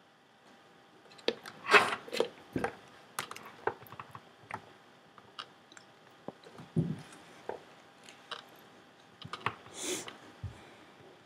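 Irregular clicks, taps and rustles of things being handled close to the microphone, with no music playing; the loudest rustles come about two seconds in and again near the end.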